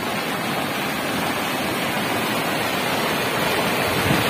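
Muddy floodwater of a swollen river rushing turbulently over and past a concrete causeway: a steady, loud rush of churning water, growing slightly louder toward the end. The river is in spate, running full over the bridge.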